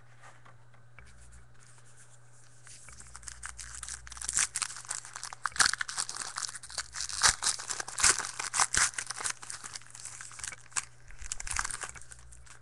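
A trading-card pack wrapper being torn open and crinkled: a run of crackling tears and rustles that starts a couple of seconds in and stops shortly before the end.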